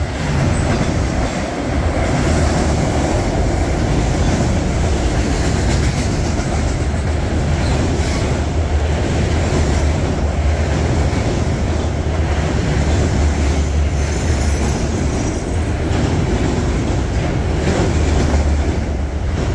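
A freight train rolling past close by: a steady rumble of wheels on the rails with clickety-clack over the rail joints.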